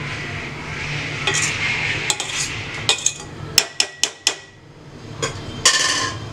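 A steel spoon scraping through cooked rice and clinking against a steel pot, with a quick run of sharp taps of metal on metal past the middle and a louder clank near the end.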